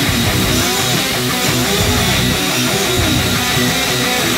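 Background rock music with electric guitar.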